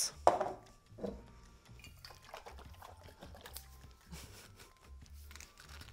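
Vegetable stock being poured faintly into a pot of sautéed cucumbers, with a short knock from the container about a third of a second in.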